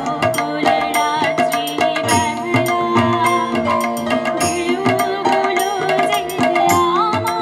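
Tabla played in quick, steady strokes under a sustained harmonium and electronic keyboard melody.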